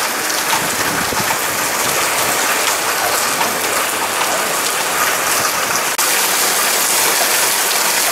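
Heavy rain pouring onto wet pavement, a steady dense hiss. About six seconds in it cuts suddenly to a slightly louder, brighter rain sound.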